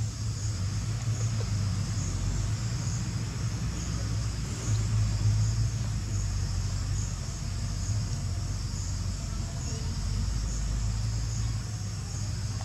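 Insects trilling high, the sound pulsing about twice a second, over a steady low rumble.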